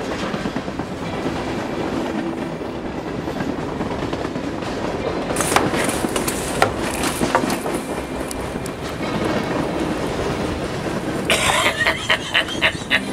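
Steady rumble of a moving train with scattered metallic clanks, turning into a quick, regular wheel clatter of about four strikes a second near the end.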